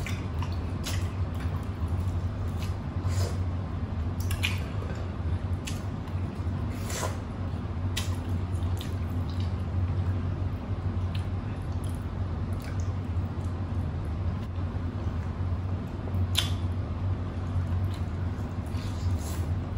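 Wet chewing, slurping and lip-smacking of people eating soupy beef shank and vegetables by hand, heard as irregular short smacks and clicks. A steady low hum runs underneath.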